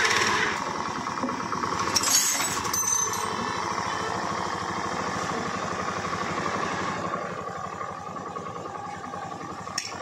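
A freshly rebuilt Honda Activa 4G scooter engine, a single-cylinder four-stroke, idling steadily with its carburettor just adjusted, left running to bed in. It is a little louder in the first second, with a couple of light clicks about two seconds in, and eases slightly near the end.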